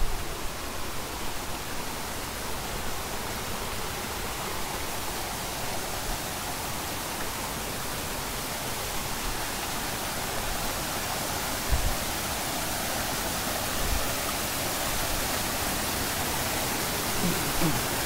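Steady rush of a mountain stream's water tumbling over rocks, growing a little louder toward the end. Two brief low thumps come about two-thirds of the way through.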